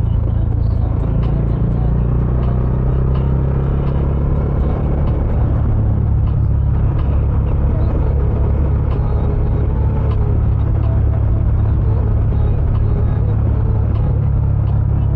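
Bajaj Dominar 400's single-cylinder engine running steadily under way through its stock dual exhaust, with a deep, even drone and no revving up or down.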